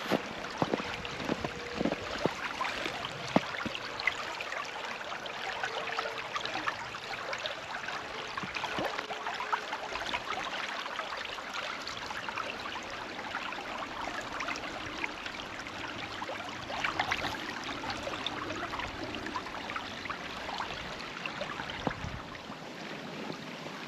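Small stream running, a steady babble of moving water dotted with many small splashes and clicks.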